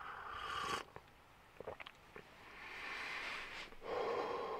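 A person slurping a sip of coffee from a mug, followed by a few faint clicks and then a long breathy exhale.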